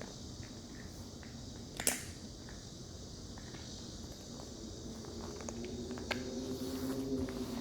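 A puppy playing with a stone: one sharp knock about two seconds in, then lighter scattered taps. A low hum comes in during the second half.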